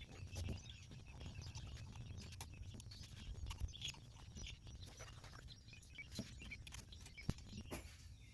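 Faint scattered clicks and taps of small ignition parts and hand tools being handled, over a low background rumble.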